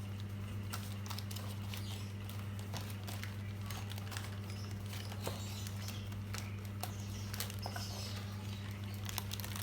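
Scattered small clicks and taps of plastic Tamiya mini toy car parts being handled and fitted, over a steady low hum.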